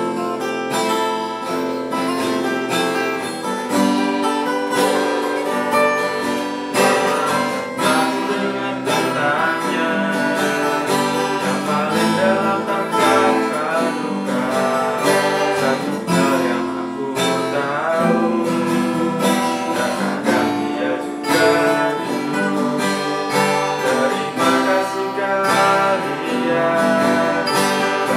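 Two acoustic guitars played together in a steady, continuous rhythm of strummed and picked chords.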